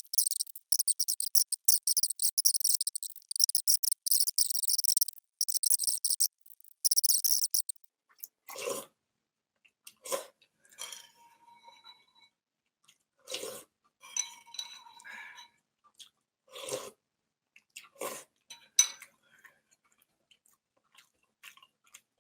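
Instant ramen noodles being slurped in quick, hissy pulls for about the first eight seconds. After that come chewing and a few short clinks and knocks of utensils against the bowl, spaced a second or more apart.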